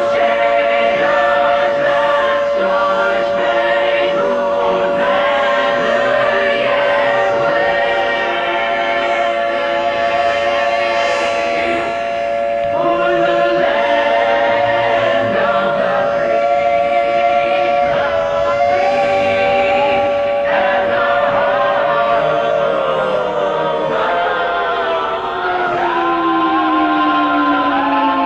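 Choir singing, with a steady siren-like tone held underneath that slides down in pitch near the end.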